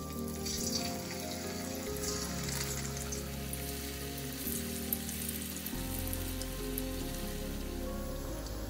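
Flour-coated cauliflower florets deep-frying in hot oil in a wok, a steady sizzle. Soft background music with held low notes plays under it.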